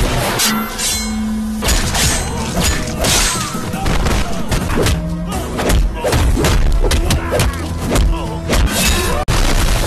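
Action-film fight soundtrack: loud background score with a rhythm, hit by repeated thuds and crashes of shattering.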